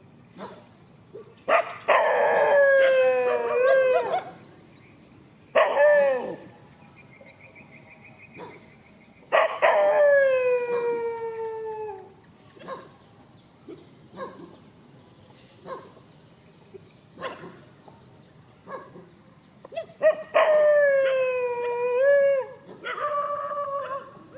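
Dogs howling and barking at each other: about five drawn-out calls, each sliding down in pitch, a few seconds apart.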